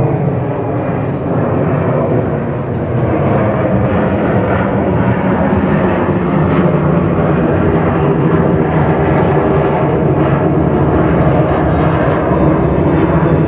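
Boeing 737-800's twin CFM56-7B turbofan engines at climb-out thrust passing low overhead just after takeoff: a loud, steady jet roar that swells slightly a few seconds in.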